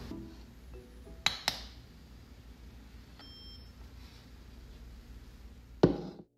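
Two light clicks, then a short high electronic beep from a round desk study timer as it is set. Near the end there is a single loud knock on the desk.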